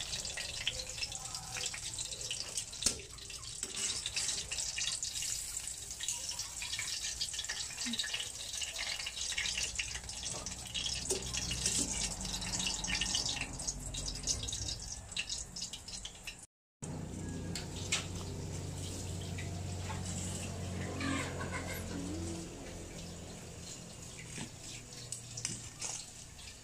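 Bread-coated tuna pies deep-frying in hot oil in a stainless steel pan, a dense crackling sizzle, as metal tongs turn the pieces and lift them out. After a cut about two-thirds of the way through, the sizzle gives way to a quieter steady hum.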